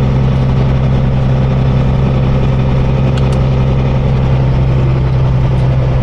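Kenworth semi-truck's diesel engine droning steadily while the loaded rig cruises at about 30 mph, with a couple of faint clicks about three seconds in.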